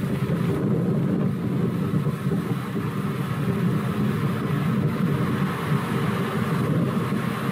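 Engine running steadily with a low rumble, most likely the diesel engine of the crane holding the cylinder on its slings.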